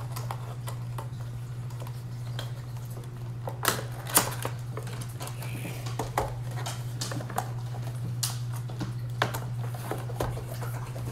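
A Funko Pop window box being opened by hand, its cardboard flap and clear plastic insert making scattered clicks, taps and crinkles, the loudest a pair of sharp clicks about four seconds in. A steady low hum runs underneath.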